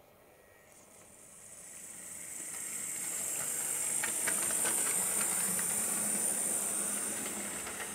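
Hornby model Stanier 8F 2-8-0 steam locomotive pulling away along the track: a steady high hiss builds up over the first three seconds, with a low motor hum and scattered light clicks as it runs.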